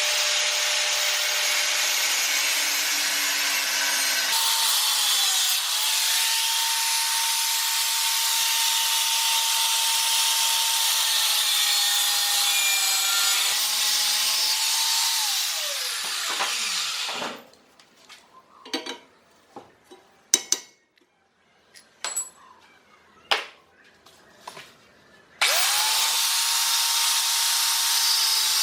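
Electric grinder working steel, its motor whine steady under a loud hiss of grinding, then winding down a little past halfway. Several sharp clicks and taps follow, and the grinder spins up again near the end.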